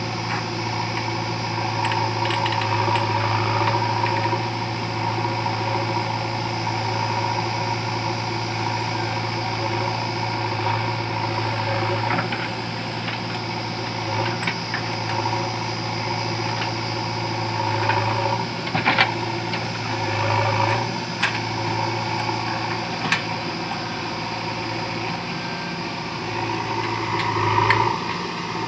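JCB 3DX backhoe loader's diesel engine running steadily while the backhoe arm digs soil, with a few sharp clanks from the arm and bucket.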